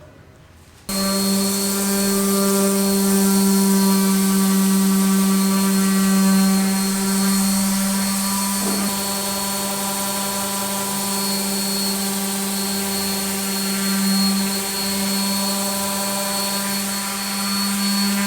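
A power tool's motor running at a steady high speed, a constant whine with a hissing edge. It starts abruptly about a second in and runs without pause.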